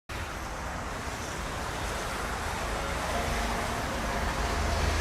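Steady road traffic noise with a low rumble of wind on the microphone. Faint music starts coming in about three seconds in.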